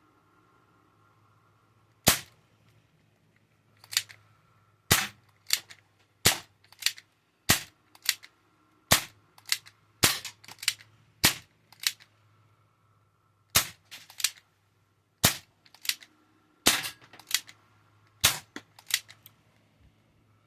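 Barra 1858 air revolver firing on PCP air through a CO2-to-PCP adapter: about twenty sharp pops, often in quick pairs, the first about two seconds in. The gun works on the PCP supply.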